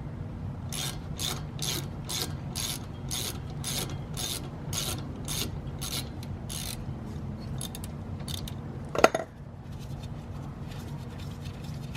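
Ratchet wrench clicking in even strokes, a little over two a second, as it unscrews a 12 mm brake caliper bolt. Near the end there is a single loud knock, then fainter quick ticks.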